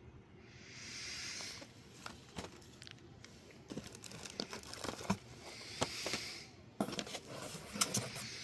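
Packaging being handled and crinkled, with two longer rustles, about a second in and around six seconds, and scattered sharp crinkles and taps in between.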